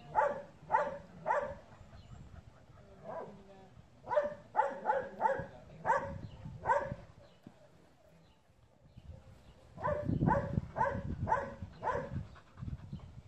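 Hound-type dog barking: three runs of short barks, roughly two a second, with quiet pauses between the runs.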